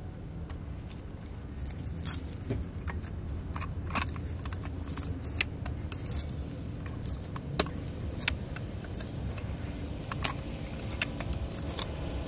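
Farrier's shoe pullers clinking and scraping on a worn steel horseshoe as it is pried off the hoof: irregular sharp metallic clicks over a steady low background rumble.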